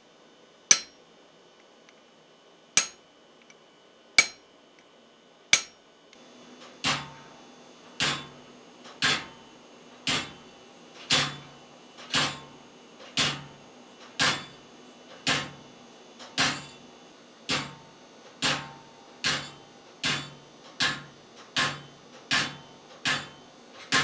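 Hand hammer striking a chisel into a red-hot railroad spike. At first there are a few sharp, ringing blows a second or two apart, then from about six seconds in a steady run of duller blows, about one a second. Under the later blows runs a steady hum from the induction forge's cooling-unit pump and fan.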